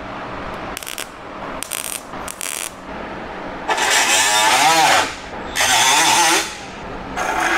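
MIG welder laying tack welds on sheet-metal patch panels: a few short crackling tacks, then three longer bursts of arc crackle of about a second each.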